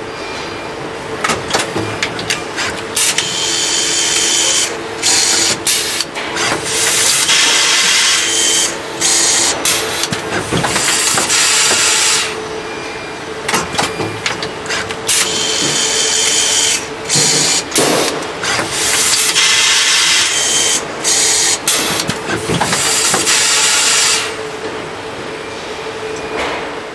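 Automated screwdriving station with pneumatic fixtures running a cycle: repeated bursts of hissing, each lasting one to a few seconds, mixed with clicks and knocks of the moving parts over a steady machine hum.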